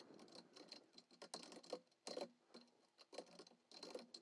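Faint, irregular keystrokes typed on a computer keyboard.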